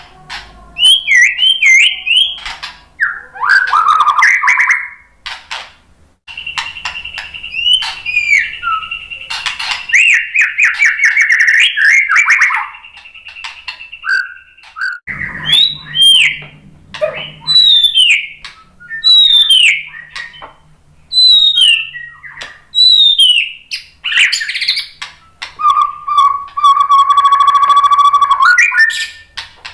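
White-rumped shama singing a loud, varied song: quick whistled phrases, a long held whistle, a series of downslurred whistles about every second and a half, and a steady note with a harsh rattle near the end.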